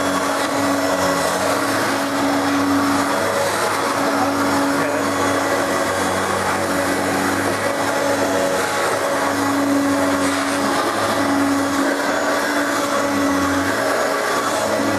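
Hoover Turbopower vacuum cleaner running steadily, its motor hum swelling and fading slightly every second or two.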